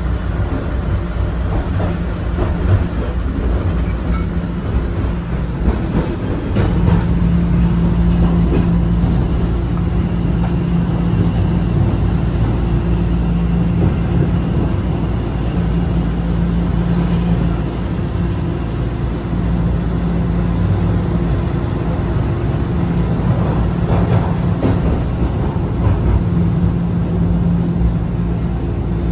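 Toronto Rocket subway train heard from inside the car as it runs through the tunnel: a loud, steady rumble of the train on the rails with a steady low hum that grows stronger about seven seconds in.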